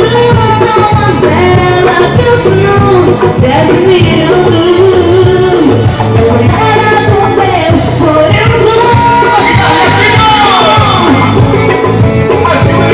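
Live band playing loud amplified music, with a woman singing lead into a microphone.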